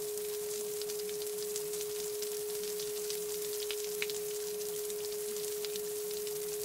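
A steady pure tone a little under 500 Hz, held unchanged, over a faint rain-like crackle and a faint wavering murmur lower down.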